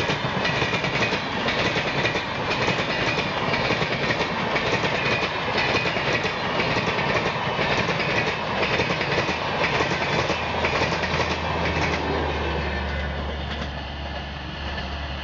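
Purushottam Express passenger coaches passing at speed, with a steady rush of wheels clattering on the rails. About twelve seconds in, the sound drops away as the last coach goes by and the train recedes.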